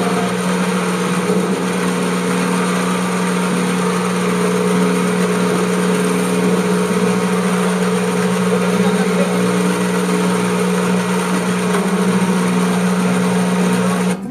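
Kubota SR-J5 combine harvester's diesel engine and machinery running at a steady speed, with a constant hum, while it unloads grain through its auger.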